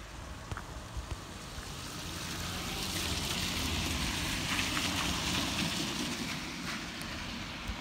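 A car passing on a wet road: tyre hiss that swells over a few seconds and fades, with a low engine rumble beneath it.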